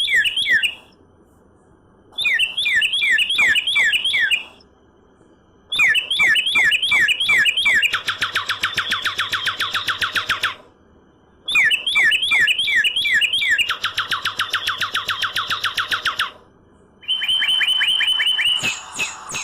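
Northern cardinal song: phrases of quickly repeated down-slurred whistles, two of them running straight into a fast, even trill of short notes, with pauses of about a second between phrases.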